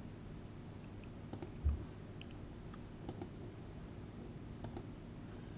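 A few faint computer mouse clicks, spaced a second or more apart, over a low steady room hum, with one low thump about one and a half seconds in.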